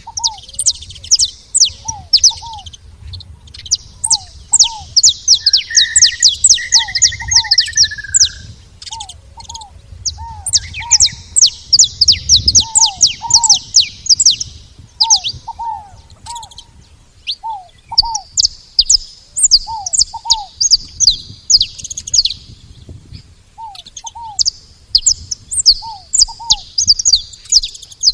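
Saffron finch calling: long runs of quick, high chirps broken by short pauses. A lower two-note call repeats throughout, and a brief buzzy trill comes about six seconds in.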